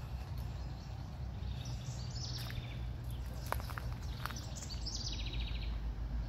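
Songbirds chirping and calling, ending in a quick trill about five seconds in, over a low steady rumble.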